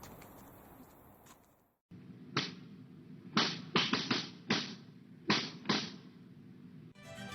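About eight sharp metallic knocks at an irregular pace, each with a short ring, typical of hammering on a car body panel during dent repair.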